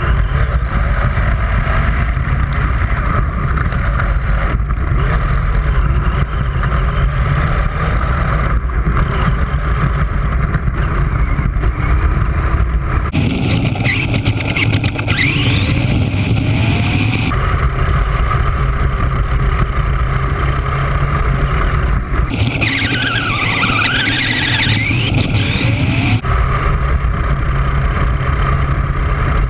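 Toy RC car running and drifting on dirt: a continuous loud motor and tyre noise, with rising whines as it speeds up in the middle part and abrupt shifts in the sound at several points.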